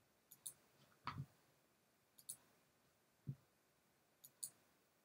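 Faint clicking of a computer pointing device: three quick double clicks, about two seconds apart, as a file is picked and a button pressed, with two soft low thumps between them.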